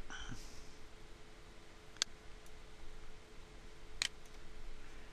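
Two single computer-mouse clicks about two seconds apart, over a faint steady hum.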